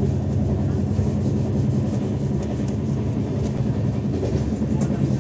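LHB passenger coach of a moving express train heard from inside: a steady rumble of wheels running on the rails, with repeated knocking from badly flat-spotted wheels.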